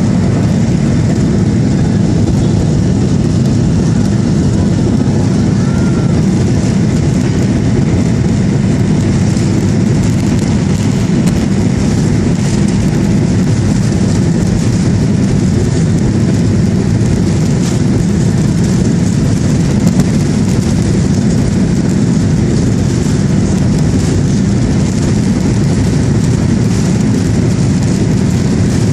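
Steady rumble of a jet airliner's engines and rolling wheels heard from inside the cabin as the plane moves along the runway.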